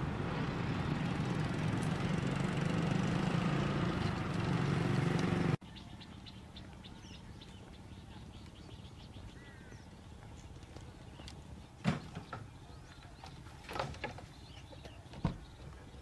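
Loud, steady rushing noise with a low hum, swelling slightly, that cuts off abruptly about five and a half seconds in. Then comes a quiet rural background with faint bird chirps and a few sharp knocks.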